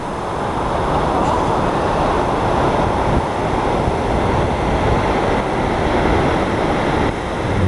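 Steady roar of Kinuseo Falls, a waterfall higher than Niagara, its water pouring into the river canyon below.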